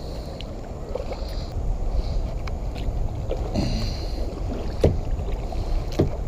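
Kayak being paddled, with paddle strokes and water splashing over a steady low rumble, and two sharp knocks near the end.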